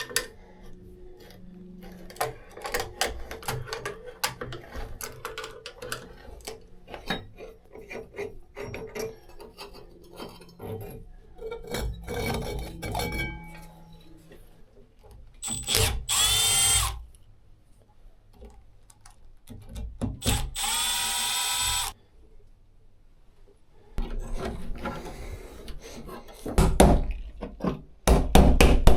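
Hand work with tools: scattered taps, clicks and scrapes, then a small power drill whirring in two short bursts, about a second and then two seconds long, and rougher, louder knocking and scraping near the end.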